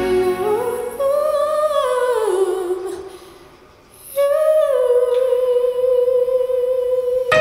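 Unaccompanied solo female voice singing live: a rising phrase held with vibrato that fades away about three seconds in, then a new long note held steady from about four seconds in.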